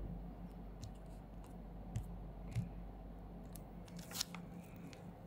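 A few faint, sharp clicks and taps of fingers on a phone's touchscreen and case, over a low steady electrical hum.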